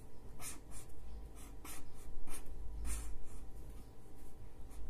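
Blue marker pen drawing on paper: a run of short, separate scratching strokes, a few each second, over a steady low hum.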